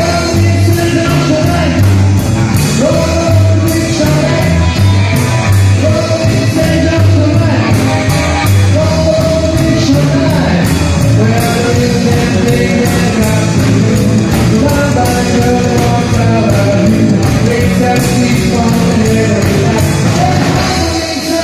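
Live rock'n'roll band playing: upright double bass walking a steady bass line, electric guitars and a drum kit with a driving cymbal beat, and a singer's voice over them.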